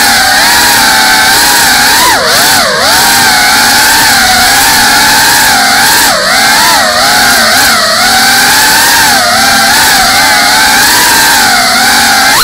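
GEPRC CineLog 35 cinewhoop's brushless motors and ducted propellers whining in flight, picked up by the camera on the drone itself. The pitch swings and dips with throttle about two seconds in, again around six seconds, and near the end.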